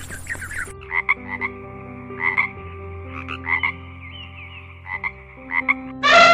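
Frog croaking: short croaks repeated irregularly, some in quick pairs, from about a second in. Right at the end a much louder drawn-out pitched call begins.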